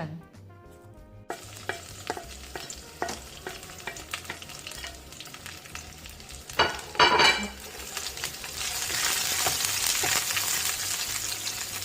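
Utensil clicks against a pan, a loud clatter about seven seconds in, then a steady sizzle that grows louder as smashed garlic fries in oil over medium heat.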